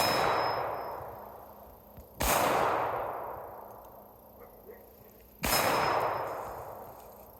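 .38 Special revolver firing three single shots, the first right at the start, then about two and three seconds apart, each followed by a long echoing tail that fades out.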